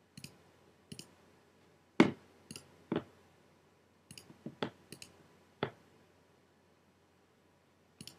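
A series of computer clicks, some in quick double-click pairs and a few louder knocks, as folders are selected one after another in a file-browsing dialog. The clicks come irregularly through the first six seconds, the loudest about two seconds in, then stop for a while, with one more pair near the end.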